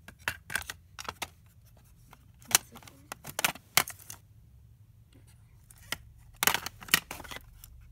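Hard plastic cassette tape cases clicking and clattering as they are handled on a shelf, in several short bursts of knocks.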